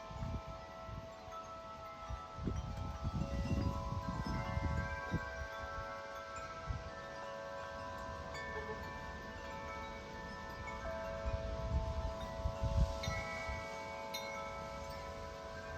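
A large tubular wind chime, a Corinthian Bells 50-inch, ringing continuously in strong gusty wind, many long-sustained overlapping notes sounding together. Gusts buffet the microphone with a low rumble now and then, strongest a few seconds in and again near the end.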